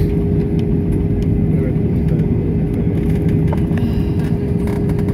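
Cabin noise inside an Airbus A320-family airliner rolling out on the runway after touchdown: a loud, steady rumble of engines and wheels with a constant hum over it.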